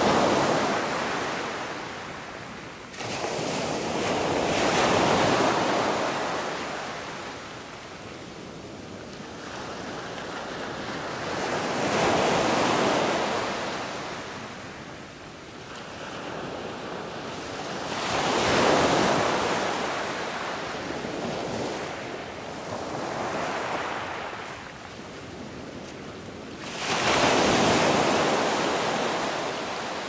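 Rushing noise of surf, swelling and fading in long surges every four to seven seconds as waves break and wash back.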